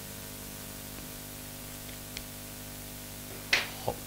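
Steady electrical hum and hiss of a small lecture room. About three and a half seconds in comes a brief noisy sound, the loudest in the stretch, followed a moment later by a shorter, lower one.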